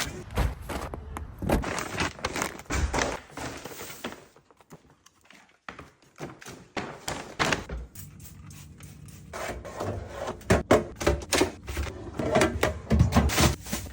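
Irregular knocks, clicks and thunks of grocery packaging and containers being handled and set down while a fridge is restocked, with a short quiet pause about four to six seconds in.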